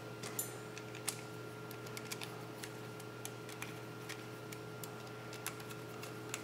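Faint, scattered light clicks of small machine screws being picked from a loose pile and set by hand into a wheel's hub adaptor, a few ticks a second at irregular spacing.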